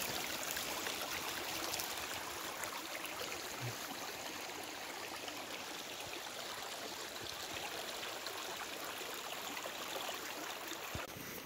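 A small snowmelt stream running with a steady, even rush of water.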